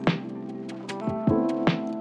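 Background music: sustained chords with sharp percussive hits, one just after the start and two more in the second half.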